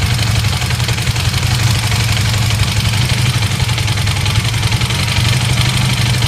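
Honda CB400N's air-cooled parallel-twin engine idling steadily with a rattle coming from the engine, a noise whose cause is not known.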